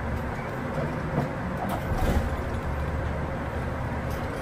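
Bus cabin noise from inside a Rokko-Maya Sky Shuttle bus as it drives slowly: a steady low engine rumble with road noise, and a few small knocks and rattles about one to two seconds in.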